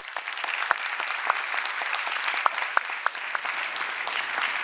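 Audience applauding: many hands clapping at once in a steady, dense applause, the people on stage clapping along.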